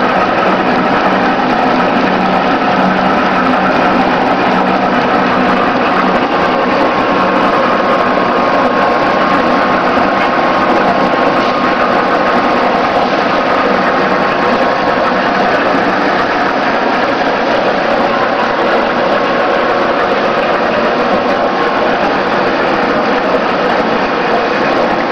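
Sprout Junior feeder conditioner running, its screw-flighted shaft turning in the trough: a steady, unchanging mechanical running noise with a faint steady tone in it.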